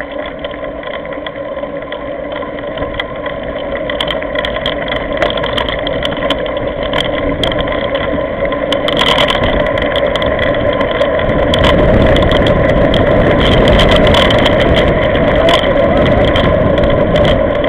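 Mountain bike rolling over a gravel track, heard through a handlebar-mounted camera: a steady hum and rumble of tyres and wind with frequent sharp clicks and rattles from the gravel and the bike. It grows louder, with more low rumble in the second half.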